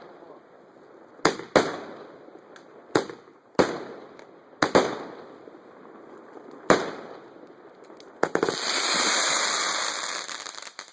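50-shot Raging Bull firework cake (fan barrage) firing: about six sharp, separate bangs spaced a second or two apart. About eight seconds in, a dense crackling burst of about two and a half seconds follows.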